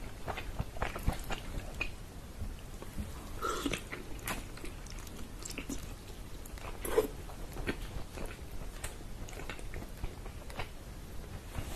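Close-miked chewing and biting of pressure-cooked, fall-off-the-bone chicken in tomato sauce: irregular chewing clicks and mouth sounds, with one louder bite about seven seconds in.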